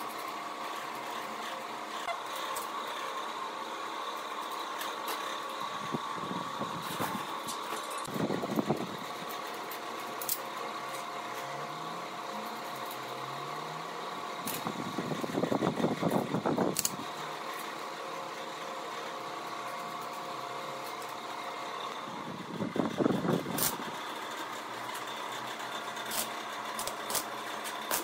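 Steady mechanical workshop hum with scattered light metal clinks as steel stair-linkage parts are handled, broken by three short bursts of arc-welding crackle a few seconds each, the loudest about 23 seconds in.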